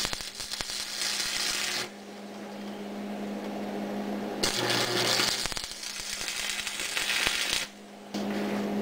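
Stick (arc) welder crackling and sizzling as a steel sleeve joint on a steering shaft is welded with a coated rod, in two runs of two to three seconds: the first stops about two seconds in, the second starts near the middle and stops shortly before the end. A steady low hum is heard in the gaps.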